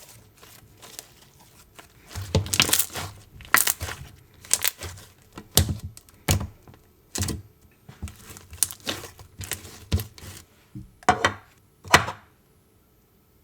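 Slime being squeezed, stretched and pressed by hand, giving a run of sharp sticky pops and clicks, one or two a second, that stops about twelve seconds in.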